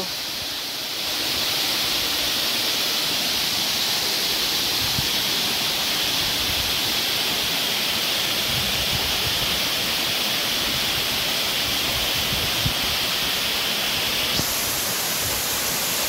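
Steady rush of a tall waterfall heard from close by, with wind buffeting the microphone.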